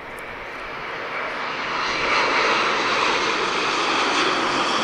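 Airplane flying overhead, its engine noise swelling over the first two seconds, then holding steady.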